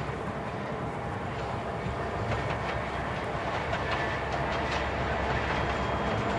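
Diesel-hauled container freight train approaching: a steady low rumble that grows steadily louder, with a run of quick clicks from the wheels on the track from about two seconds in.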